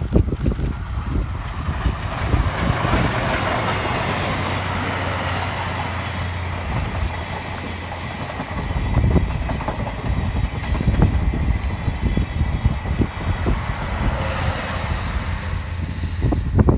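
Steam train passing close by: the C57 180 steam locomotive and its 12-series passenger coaches rolling past with a steady rumble, and wheels clacking over the rail joints from about nine seconds in.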